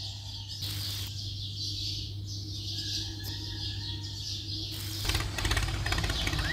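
Outdoor ambience with birds chirping. In the last second and a half a louder, rapid rattling comes in.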